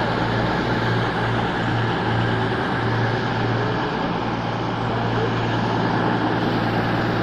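Class 221 Super Voyager diesel-electric multiple unit's underfloor diesel engines running steadily, a constant hum with no change in level.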